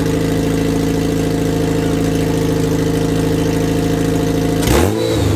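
Kraftwerks-supercharged Honda K-series engine idling steadily through an open header. Near the end comes a short burst of noise and a quick rise and fall in engine pitch.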